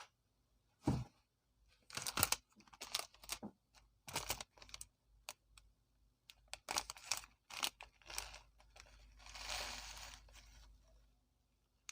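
A plastic nimko snack packet being handled and crinkled, with a run of sharp rustles and crackles and then one longer rustle a little past halfway.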